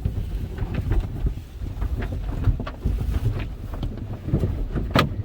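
Soft-cloth car wash cloth and water working over the car, heard from inside the cabin: a steady low rumble with irregular slaps, and one sharp slap near the end.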